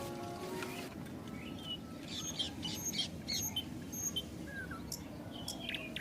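A few notes of music die away in the first second. From about two seconds in come short, high bird chirps and tweets, several in quick succession.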